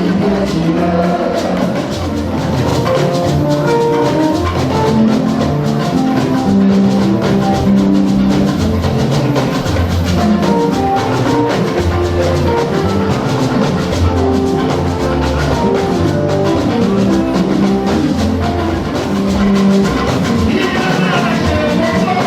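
Church gospel band playing: drum kit and bass under a stepping melody line, with singing coming back in near the end.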